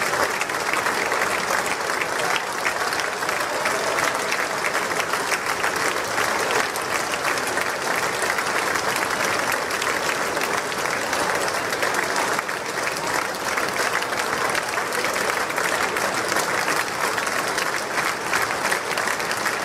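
A large crowd applauding steadily: dense, continuous clapping from many hands.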